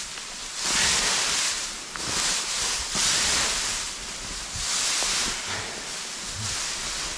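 Dry hay rustling and crackling close to the microphone as it is pulled from a bale and gathered into an armload, in repeated surges about every couple of seconds.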